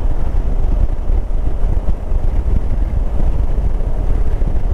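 Motorcycle on the move, heard as a steady, heavy low rumble of wind buffeting the microphone with road and engine noise underneath.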